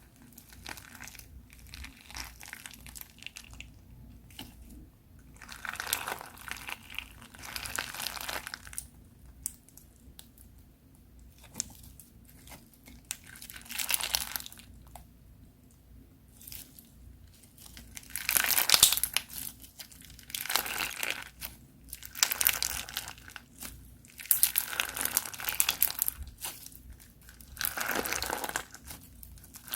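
Crunchy slime being worked by hand, crackling and crunching in repeated bursts of a second or two, with the loudest burst about two-thirds of the way through.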